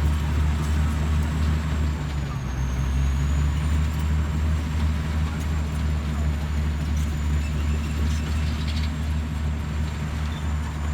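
Bulldozer's diesel engine running steadily, a loud low drone, with a thin high whine above it.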